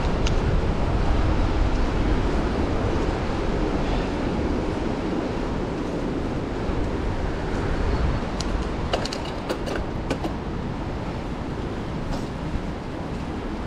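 Wind rushing over the microphone and bicycle tyres rumbling on the ride, a steady noise heaviest in the low end. A quick run of sharp clicks or rattles comes about eight and a half to ten seconds in, and one more near twelve seconds.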